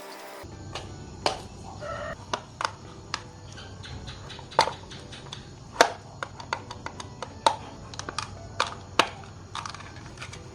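Irregular sharp clicks and taps of small parts being handled during a blood pressure monitor repair, over a steady low hum. A chicken clucks briefly in the background about two seconds in.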